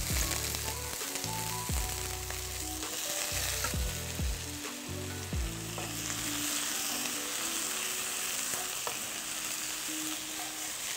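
Chicken feet sizzling in hot oil with fried garlic and dried chillies in a wok, stirred with a wooden spatula that scrapes and taps the pan now and then.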